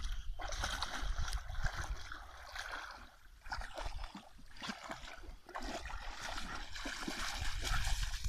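Alaskan malamute puppy paddling and splashing through pond water, wading out through the shallows near the end, with wind rumbling on the microphone.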